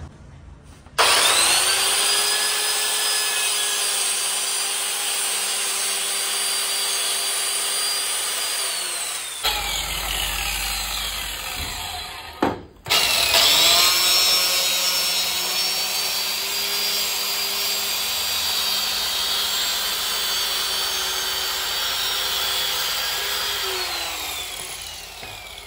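Electric power saw cross-cutting a WPC wall panel in two runs. It starts suddenly about a second in and cuts with a steady whine for about eight seconds before winding down. After a short pause it runs again for about ten seconds and winds down near the end.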